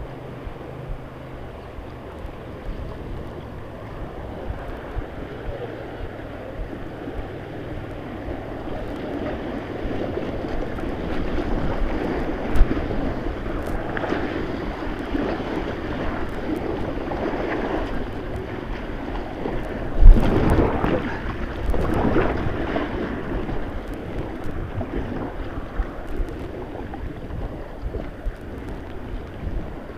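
Rushing river water with wind buffeting the microphone, growing louder from about ten seconds in. A sharp thump comes at about twelve seconds, and a much louder one at about twenty.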